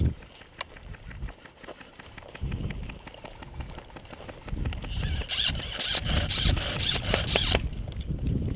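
Wind rumbling on a GoPro Hero helmet camera's microphone, with rustling and handling noise as the wearer moves, and scattered sharp clicks, the loudest right at the start. In the middle, a louder hissing rustle lasts about three seconds.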